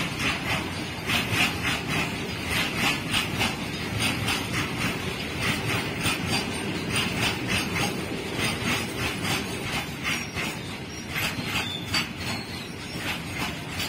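Freight train of open-top wagons rolling past: a steady low rumble with a quick, rhythmic clickety-clack of wheels over the track.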